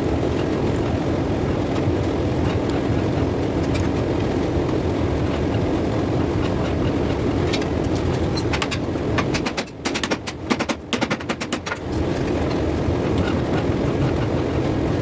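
Steady roar of a blacksmith's forge. About ten seconds in the roar briefly drops away and a quick run of sharp metallic clicks and knocks comes through, then the roar returns.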